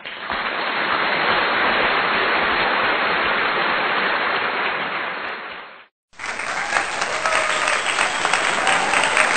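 Applause from a crowd clapping. It fades out about six seconds in, breaks off briefly, then starts again.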